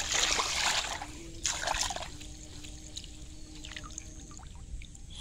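Water splashing and pouring off a fishing net as it is pulled up out of shallow weedy water, with two louder gushes in the first two seconds, then light trickling and dripping.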